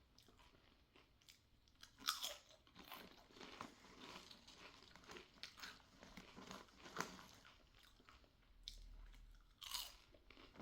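Close-miked crunching and chewing of seaweed-salted Koikeya Nori Shio potato chips. Irregular crisp crunches come through, loudest about two seconds in and near the end.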